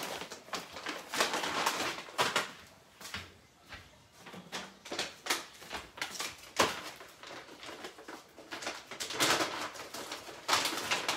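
Repeated crinkling and rustling of a plastic bag being handled, in irregular bursts, with a sharp click about six and a half seconds in.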